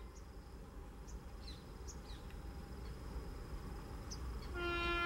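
Indian Railways electric locomotive hauling a passenger express, approaching at speed: a low rumble that slowly grows louder, then a long, steady horn blast that starts near the end. Faint bird chirps sound over the top.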